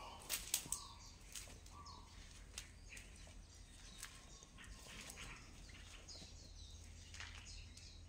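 Faint, scattered chirps and short calls of wild animals or birds at night, with a few sharp clicks about half a second in.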